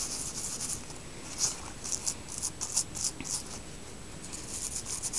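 Old toothbrush scrubbing across primrose leaves and stems in quick, short, rasping strokes, brushing on a baking-soda remedy against moths and mildew. The strokes come in runs, thin out in the middle and pick up again near the end.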